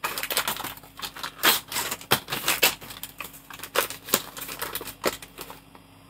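Wrapping being handled and pulled open by hand, a busy run of irregular crinkling crackles and clicks that dies down shortly before the end.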